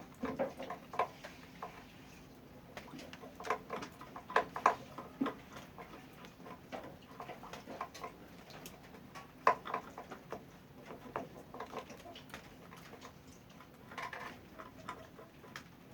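Rabbits moving about in a cage: irregular light clicks, taps and scrabbling in scattered clusters.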